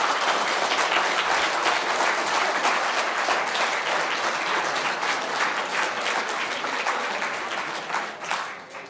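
Audience applauding, dense clapping that thins out and dies away near the end.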